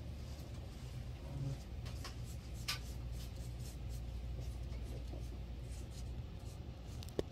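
Small paintbrush scratching and dabbing over a leaf and paper as mica powder is brushed on, heard as faint scattered strokes and ticks over a steady low room hum, with one sharper click near the end.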